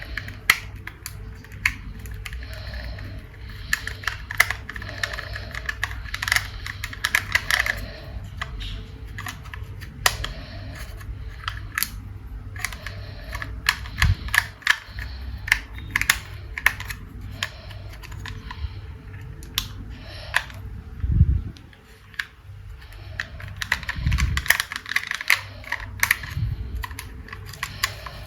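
Plastic toys and packaging being handled and unboxed: irregular sharp clicks and crackly rustling, with a few dull thumps.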